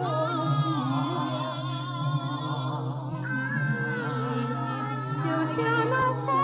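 Several layered voices humming and singing long, wavering notes with heavy vibrato over a low, steady drone.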